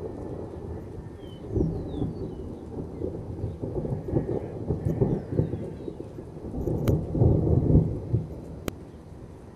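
Thunder rumbling and rolling, with a sudden swell about a second and a half in and a louder one around seven to eight seconds in before it fades.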